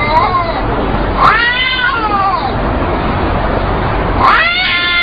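Domestic cats yowling in a face-off: long, wavering caterwauls that rise and fall in pitch. One call trails off at the start, a long one comes about a second in, and another begins near the end.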